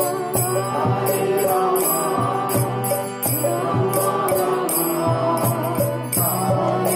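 Kirtan: devotional mantra chanting over a steady held drone, with a regular beat of hand cymbals at about three strokes a second.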